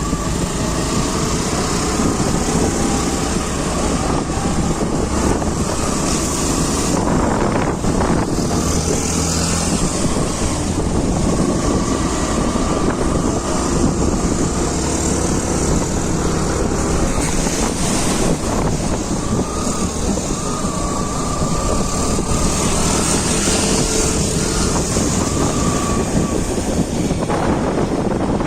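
Motorcycle engine running steadily on a ride, with wind rushing over the microphone.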